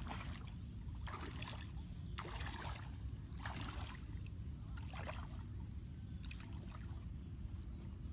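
Water splashing in regular strokes, about one every second and a bit, fading after about six strokes, over a steady low rumble.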